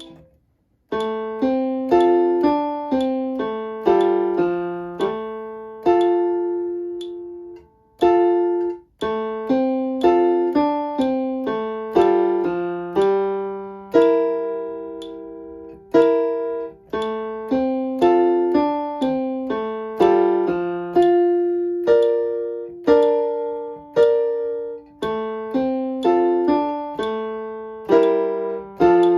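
Piano playing a beginner's lesson piece at a slow tempo: groups of quick notes alternate with long held notes left to ring and fade. The playing stops briefly just after the start and again about eight seconds in.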